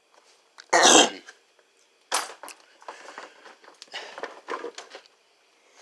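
A short loud noisy burst about a second in, followed by a run of small clicks and knocks as welding tools and gear are handled and set down.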